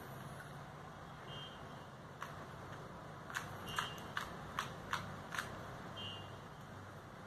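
A 2x2 plastic puzzle cube being turned quickly by hand in a speedsolve: irregular sharp clicks as the layers snap round, several in quick succession in the second half. A short, faint high beep sounds three times, about two and a half seconds apart.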